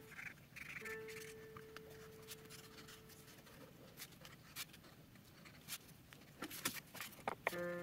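Felt-tip marker drawing on construction paper: faint scratchy strokes, with a few sharper clicks near the end.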